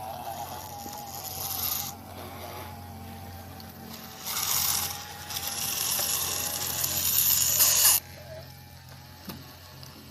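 Small electric motor of a radio-controlled construction truck whining, with a loud hissing rattle in spells that cuts off suddenly about eight seconds in.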